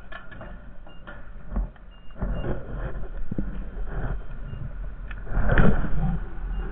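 Honda Foreman TRX450ES ATV running while plowing snow, with irregular knocks and scraping noise over a steady low rumble. The loudest surge comes about five and a half seconds in.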